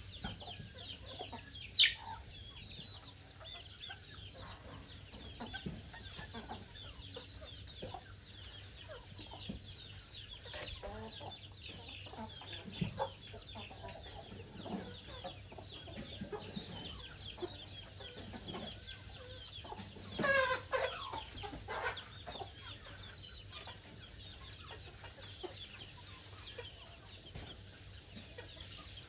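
A brood of chicks peeping continuously in short high chirps, with adult chickens clucking. One louder chicken call comes about twenty seconds in, and a shorter sharp one about two seconds in.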